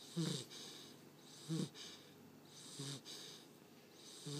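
American Bulldog puppy snoring in her sleep: four short, low snorts about every second and a half, each joined by a wheezy hiss of breath.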